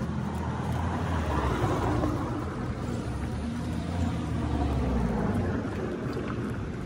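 Steady low outdoor rumble of wind on the microphone mixed with car traffic in the street, a little louder from about a second in.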